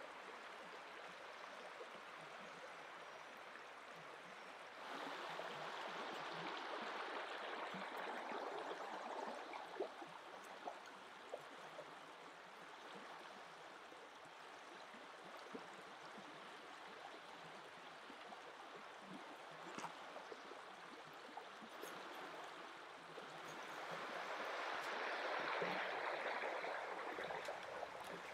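Shallow river running over a gravel and stone bed: a steady rushing babble. It swells louder for a few seconds about five seconds in and again near the end, with a few faint clicks.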